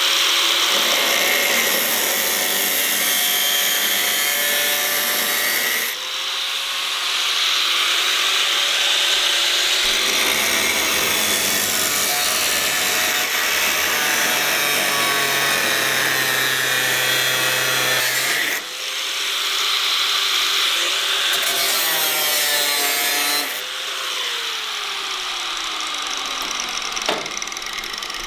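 Angle grinder with a thin cutting disc slicing through car body sheet steel: a loud, steady cutting screech over the motor's whine. The motor spins up at the start and again about two-thirds of the way through. Near the end it is switched off and winds down with a falling whine.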